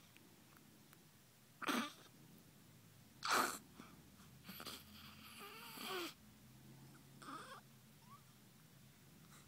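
Sleeping newborn baby making short noisy breaths and grunts, four in all, the loudest about three seconds in, with a brief squeaky whimper in the middle.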